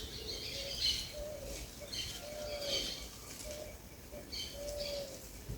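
Birds calling: short, low, slightly arched notes repeating every second or so, mixed with scattered high chirps.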